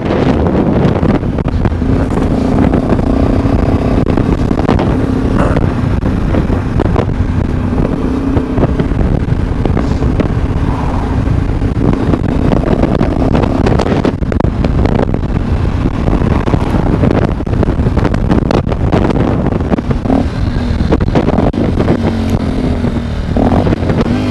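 Sinnis Terrain 125's single-cylinder four-stroke engine running steadily through its stainless Torro exhaust at a moderate cruise in fifth gear.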